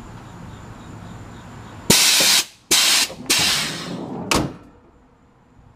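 Air suspension on a 1987 Suburban being aired out: compressed air hisses out of the bags' valves in four loud releases, the third the longest, as the truck drops to the ground.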